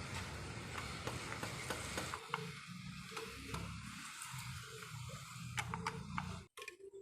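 Ford Ranger 2.2 four-cylinder diesel engine running with a fast ticking knock from inside the engine. The sound cuts off abruptly near the end.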